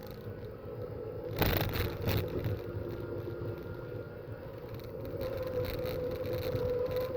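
Racing car engines running on the circuit, with a steady engine note that climbs a little in pitch near the end. There is a short rush of noise about a second and a half in.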